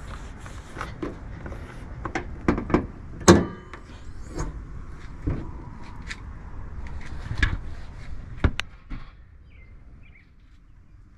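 The hood of a Mazda CX-3 being unlatched and lifted open: a series of clicks and clunks, the loudest a metallic clank about three seconds in that rings briefly, and another sharp click a little over eight seconds in.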